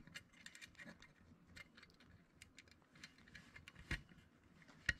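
Faint, irregular small metal clicks and ticks as fingers handle the clicker spring and pawl on the opened back plate of a Stubla centrepin reel. Two sharper clicks come about four seconds in and near the end.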